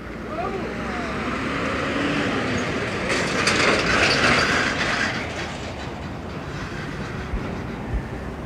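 A road vehicle passing close by on the highway: its noise swells to a peak around four seconds in, then eases into a steady traffic rumble.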